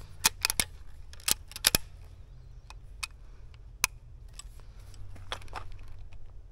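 Sharp metallic clicks as the tube magazine of a Henry .22 Magnum lever-action carbine is loaded with cartridges: a quick cluster of clicks in the first two seconds, then scattered fainter clicks.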